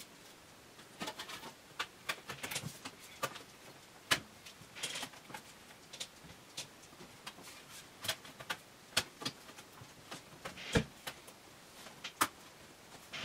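A MacBook Pro's aluminium bottom case being fitted back on and pressed down by hand. Irregular sharp clicks and taps come as its clips snap into place, mixed with some rubbing and handling noise.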